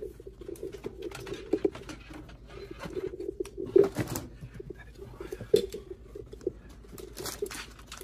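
Computer parts being handled: a motherboard set into and lifted out of a metal PC case, with scattered light clicks, taps and knocks. The loudest knock comes about four seconds in.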